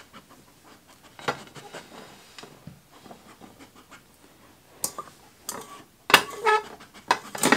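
Plastic cups being slid around and set down on a card mat, with a few separate knocks about a second in and near five seconds, then a quick run of clattering from about six seconds on.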